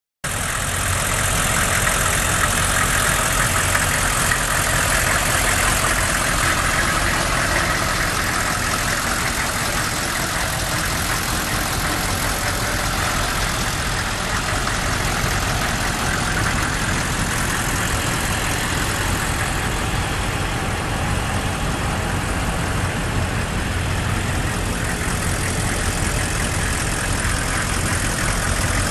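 The 6.5-litre V8 diesel engine of a 1996 Chevrolet C3500 pickup idling steadily.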